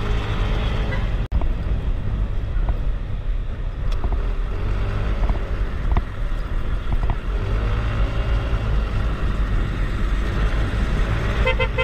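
Motor scooter engine running while riding, its pitch rising and falling with the throttle, under heavy wind rumble on the microphone. The sound cuts out briefly about a second in, and a quick series of beeps comes near the end.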